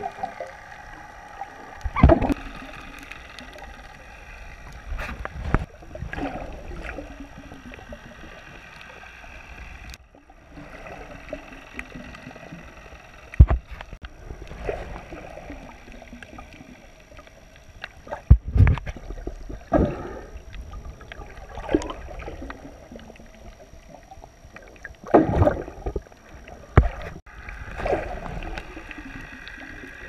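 Muffled underwater sound from a GoPro in its waterproof housing on a snorkeler's chest: a steady murky hiss with water swishing and gurgling past the housing every few seconds as the swimmer moves.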